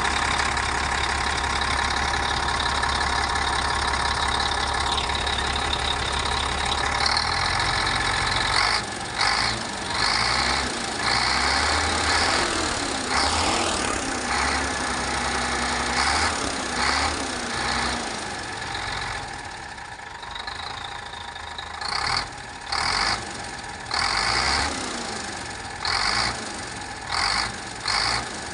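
Overhauled Weichai diesel engine running on its test run. It runs steadily at first, then unevenly, and in the last several seconds it rises in a series of short surges about a second apart.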